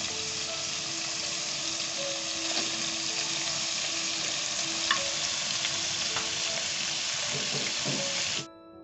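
Chicken frying in oil in a pan, a steady sizzle as sliced vegetables are tipped in on top. The sizzle cuts off abruptly near the end, leaving faint background music.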